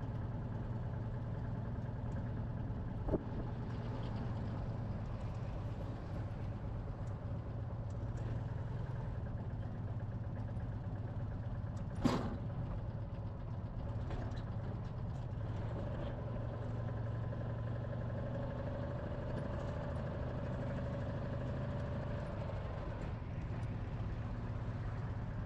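A small Citroën car's engine running steadily as it drives along, with road noise. A sharp knock about three seconds in and a louder one about twelve seconds in.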